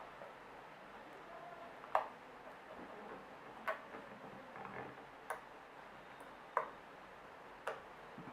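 Slime being kneaded and squeezed by hand, giving five sharp little pops or clicks about one every second and a half, with soft handling noise between them.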